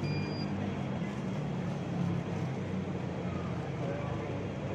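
Busy city street ambience: a steady low traffic rumble under faint chatter of passers-by, with a short high beep right at the start.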